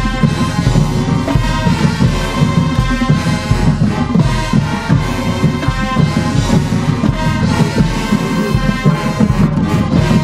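High school marching band playing loud, full music: massed brass over drums, with a regular low beat.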